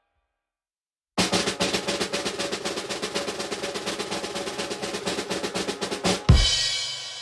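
Snare drum roll: rapid, even strokes for about five seconds, ending about a second before the end on one loud crash hit that rings and fades.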